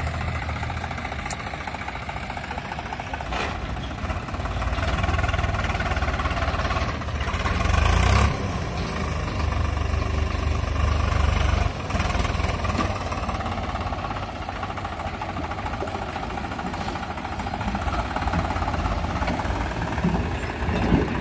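Diesel tractor engine working under heavy load, as when pulling a trolley stuck in mud. It grows louder a few seconds in and peaks twice around the middle, then settles back to a steadier, quieter run.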